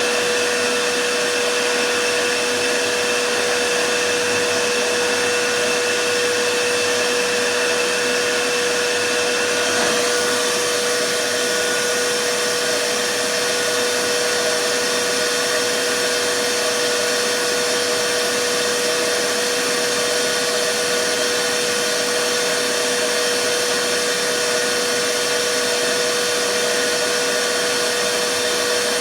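Vacuum cleaner running steadily: a constant motor whine over rushing air. About ten seconds in, its higher faint whistle changes pitch.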